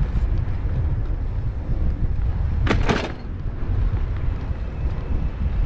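Wind buffeting the microphone of a camera riding on a moving bicycle: a steady low rumble, with one brief sharp rustle about three seconds in.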